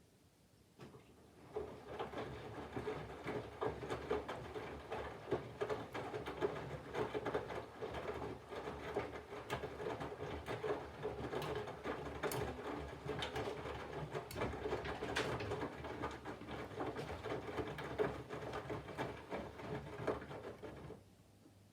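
Candy GVF4 front-loading washing machine's drum turning during the water-heating phase of the cycle: a steady motor hum with wet laundry sloshing and tumbling. It starts about a second and a half in and stops shortly before the end.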